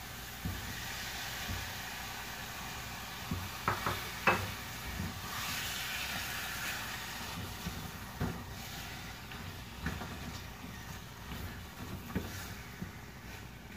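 Chicken pieces and ginger sizzling in a little oil in a pot, stirred with a spatula that knocks against the pot a few times.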